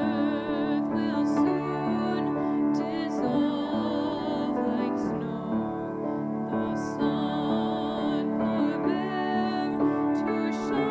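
A woman's voice singing with vibrato, accompanied by piano.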